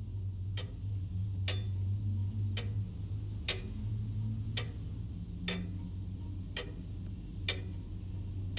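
Pendulum regulator clock by Dent of London ticking, eight even ticks about a second apart, over a steady low hum.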